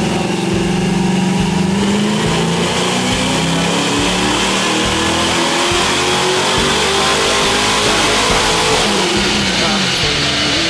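1974 Dodge Dart's engine revving, its pitch climbing over the first couple of seconds and then rising and falling repeatedly.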